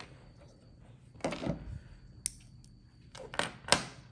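Small hard fidget-toy parts being handled and fitted together by hand: scattered sharp clicks and clacks, a cluster of them near the end with one louder clack.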